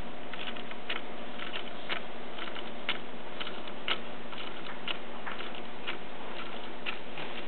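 Wooden-geared Toucan clock (Clayton Boyer design, electromagnetically driven) ticking: a sharp click about once a second, with lighter clicks in between.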